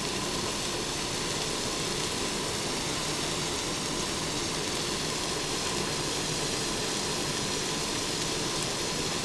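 Chow mein noodles and broccoli frying in a hot wok: a steady, even sizzle with no separate clatters or stirs.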